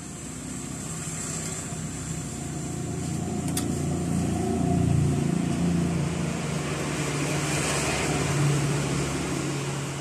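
A motor engine running, its hum swelling to a peak about halfway through and then easing off, with a single sharp click a little before the middle.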